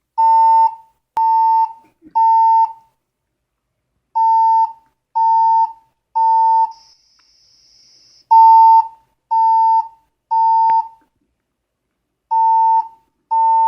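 Building fire alarm sounding its evacuation tone: three steady, high beeps about a second apart, a pause, then the group of three again, repeating. This is the temporal-three pattern that signals a building evacuation.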